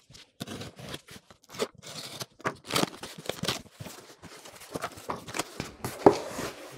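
Unboxing noises from a corrugated cardboard box: a folding knife slitting the packing tape, then the flaps pulled open and crumpled kraft packing paper rustled, a run of irregular scrapes and rips. A sharp knock near the end is the loudest sound.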